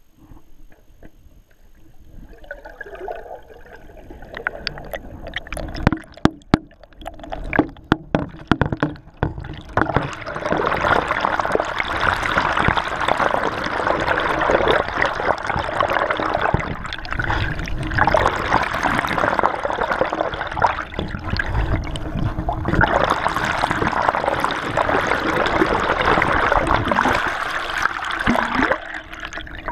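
Water rushing and gurgling over an underwater camera below a moving kayak, heard through the waterproof housing. It starts faint and builds, with a few sharp knocks about six to nine seconds in, then turns to a loud, steady rush from about ten seconds on.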